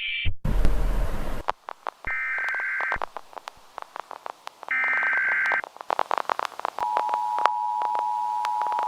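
A burst of static hiss, then two data bursts from an Emergency Alert System SAME header, each about a second long, with scattered glitchy clicks between them. About seven seconds in, the steady two-tone EAS attention signal begins.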